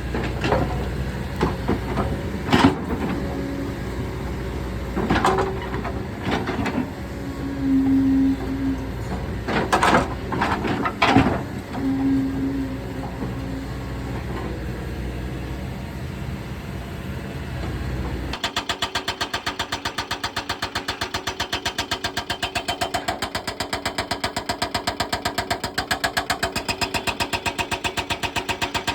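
Kobelco excavator's diesel engine running steadily under a scatter of sharp knocks and clanks, with two short steady whines. About two-thirds of the way through the sound changes suddenly to a fast, even, pulsing clatter.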